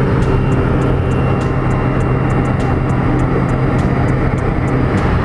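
Loud, steady drone of a propeller aircraft's engine heard inside the cabin in flight.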